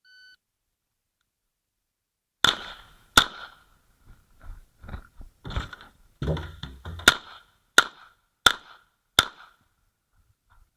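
A short electronic beep, then about two seconds later pistol shots from an Uzi Pro 9mm: two in quick succession, a few seconds of quieter knocks and clatter, then four evenly spaced shots about 0.7 s apart. The beep is typical of a shot timer's start signal in an IPSC stage.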